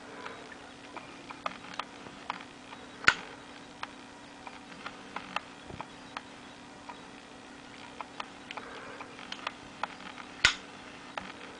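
Buck Vantage Pro folding knife handled and worked open and shut: a string of small clicks and taps, with two sharp snaps, one a few seconds in and one near the end, as the blade swings and locks or shuts. A faint steady hum runs underneath.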